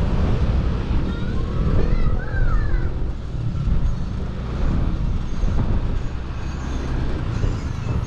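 Motorcycle riding along a road, heard from the rider's seat: a steady low rumble of engine and road noise.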